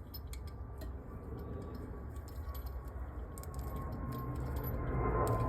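Faint clicks and taps of small carburettor parts being handled and fitted by hand, over a low steady hum.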